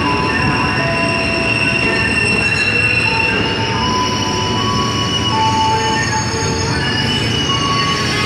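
KRL electric commuter train rolling into the station, its wheels squealing in several high, shifting tones over a steady rumble as it slows to stop.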